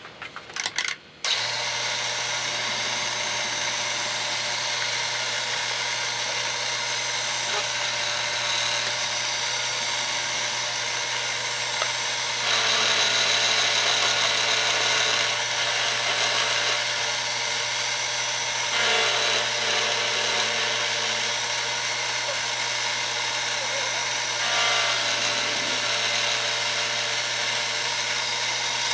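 Excello milling machine running, its end mill cutting a slot in square metal tubing held in a vise. A few loud knocks come about a second in, then a steady cutting sound that grows louder for a few seconds at a time, three times.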